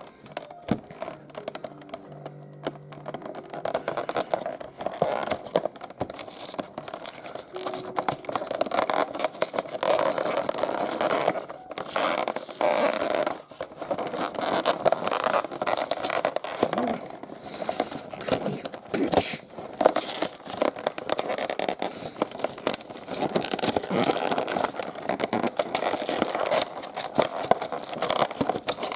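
Packaging being opened by hand, with irregular crinkling, scraping and tearing sounds throughout.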